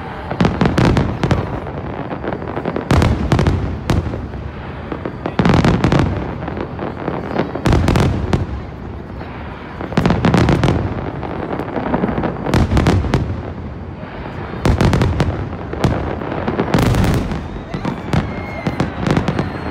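Aerial firework shells bursting in a rapid barrage: clusters of loud booms about every two seconds, with continuous crackling between them.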